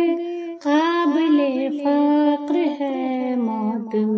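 A woman singing a naat, an Urdu devotional song, holding long ornamented notes that bend and turn. There is a short break for breath just over half a second in.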